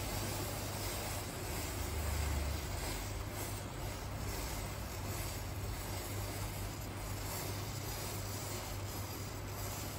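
Rows of wooden matchsticks burning: a steady noisy hiss of flames over a constant low rumble.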